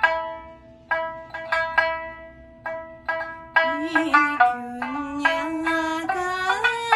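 Amami sanshin, a three-string snakeskin lute, plucked in a solo folk-song introduction, single ringing notes one after another. About three and a half seconds in, a woman's voice comes in over it, singing a wavering, ornamented melody line.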